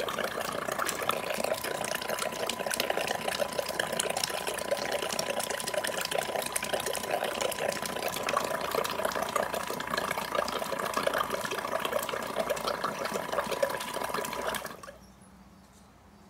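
A Tesla-valve airlift pump in a bucket of water, driven hard at higher air pressure, gushing and splashing water out of its spout, with a steady whine from the small air pump beneath. Both stop suddenly near the end.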